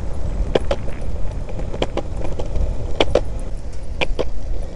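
Longboard wheels rolling fast over a concrete path, a steady low rumble, with sharp clicks in quick pairs about once a second.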